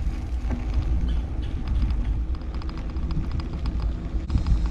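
Wind buffeting the microphone and tyre rumble on a paved road while riding a bicycle, with a fast, even ticking from about halfway through.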